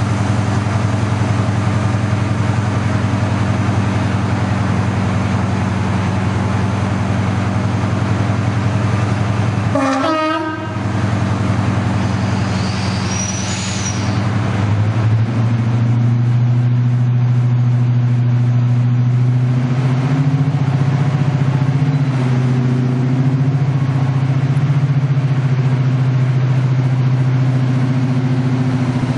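Class 55 Deltic diesel locomotive, its two Napier Deltic two-stroke engines running steadily. About ten seconds in there is a brief horn blast. From about fifteen seconds the engine note rises and grows louder as the locomotive opens up to pull away.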